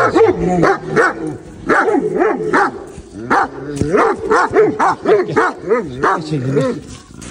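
Large dogs barking repeatedly, about two barks a second.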